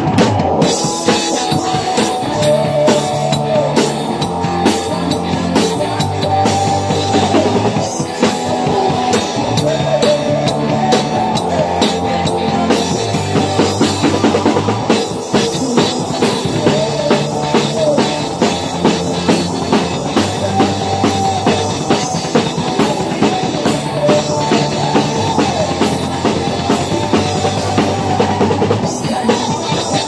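Acoustic drum kit played along to a recorded rock song: a steady, dense beat of snare, bass drum and cymbals over a stepping bass line and melody.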